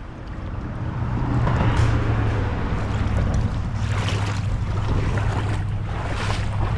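Steady low rumble of wind buffeting the microphone, with brief rustling and crunching surges as the bank's grass and mud are walked through.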